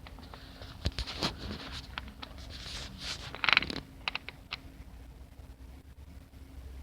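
Rustling, scraping and scattered clicks close to the microphone, most of them in the middle seconds, with the loudest scrape about three and a half seconds in: handling noise from a hand-held phone recording.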